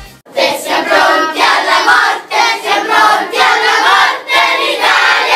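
A large crowd of children shouting a chant together in rhythmic bursts, starting suddenly after a brief gap.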